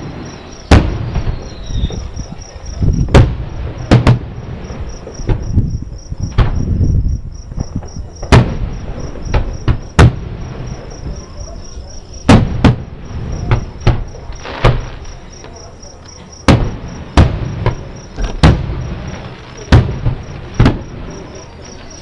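Fireworks show's aerial shells bursting, heard from about a mile away: about fifteen sharp bangs at irregular intervals, each followed by a low rumbling echo. Crickets chirp steadily underneath.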